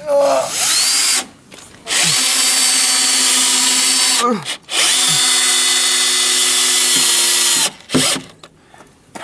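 Cordless drill-driver driving screws into wooden roof timbers: three runs of its motor whine, a short one near the start and then two of about three seconds each, each winding down as the trigger is released.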